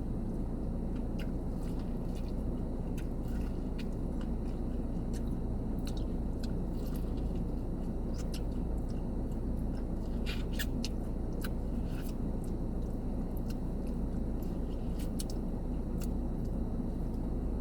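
A person chewing and biting into fried chicken crispers, with scattered small mouth clicks and crackles, over a steady low hum.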